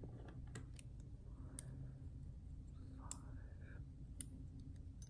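A handful of faint, irregular clicks, spaced about half a second to a second apart, over a low steady room hum.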